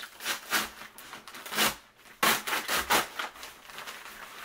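A brown paper package with packing tape being torn open and crumpled by hand, in a series of irregular rustling rips, loudest a little past two seconds in.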